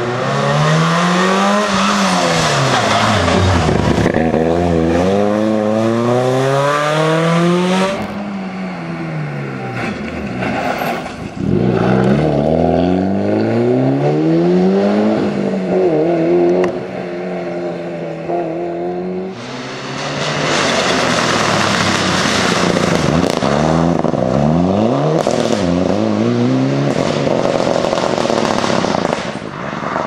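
Rally cars driven flat out on a special stage, one after another. Their engines rev hard, the pitch climbing through each gear and dropping back at each shift or lift.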